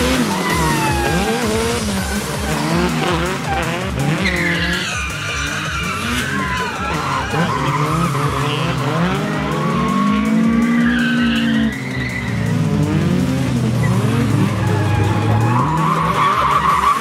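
A Toyota Corolla drift car's engine revving up and down repeatedly, with tyres squealing as the car slides.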